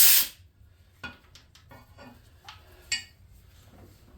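A short, loud hissing blast that stops about half a second in, followed by a few light metallic clinks and taps of tools being handled.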